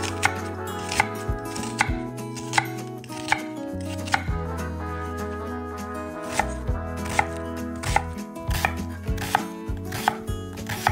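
Chef's knife cutting a peeled onion on an end-grain wooden cutting board, each cut ending in a sharp knock of the blade on the board. The cuts come slowly at first, about one a second, and quicken in the second half as the onion is diced.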